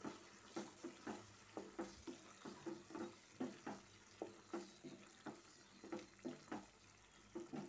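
Wooden spatula stirring thick, bubbling bread halwa in a nonstick pan: soft scraping strokes, about three a second, over a faint sizzle of the boiling milk and ghee.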